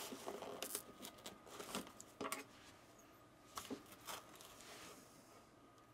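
Packaging being unwrapped by hand: faint, scattered crinkles and tearing of paper or plastic wrap, busiest in the first couple of seconds, with a few more rips about three and a half to four seconds in.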